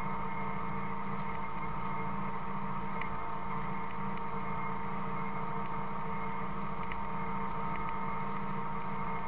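A tractor-drawn Buffalo 7700 bale feeder running: a steady mechanical drone with a constant whine over it and a few faint ticks.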